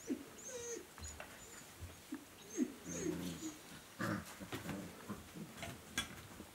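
Four-and-a-half-week-old puppy giving short, squeaky whimpers and yips while tussling with a plush toy, mostly in the first three seconds, followed by soft rustling and light bumps on the fleece bed.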